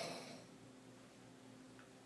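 A woman snoring on her back: the end of one heavy snore fades out in the first half-second, then a quiet pause between breaths.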